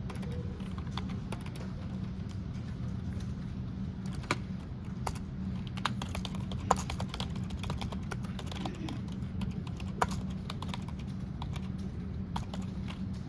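Typing on a low-profile computer keyboard: quick, irregular key clicks with a few louder strikes, over a steady low hum.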